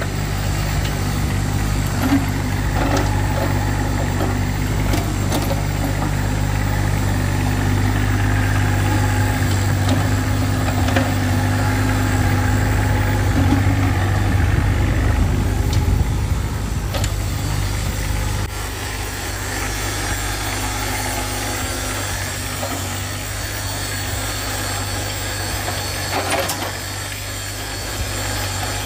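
Hitachi EX15-2 mini excavator's small diesel engine running steadily under load as the machine works its arm and travels on its rubber tracks, with a few short knocks. The engine sound drops and gets quieter about two-thirds of the way through.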